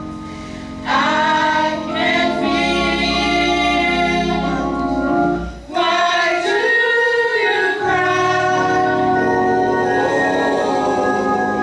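Church choir of adults and children singing a gospel song together over held organ chords. The voices swell in about a second in, and drop out briefly just before the middle before coming back.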